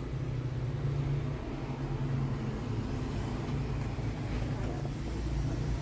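Steady low hum of an idling vehicle engine.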